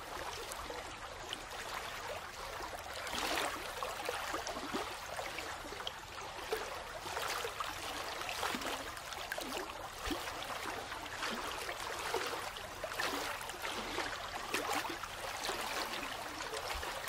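Steady sound of running water, like a flowing stream, with small bubbling sounds throughout. It serves as the audible masking layer of a subliminal track.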